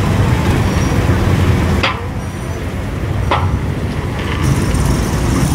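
A 1956 Chevrolet two-door sedan's engine running with a steady low rumble as the car drives slowly past. Two sharp clicks come about two and three and a half seconds in.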